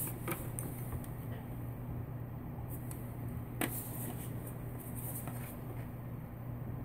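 Low steady hum with faint handling noises. One sharper click comes about three and a half seconds in.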